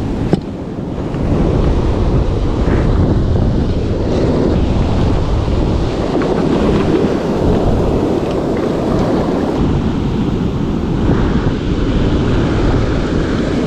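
Ocean surf washing up the beach, mixed with wind buffeting the microphone: a steady, loud rumbling noise, with one short knock about half a second in.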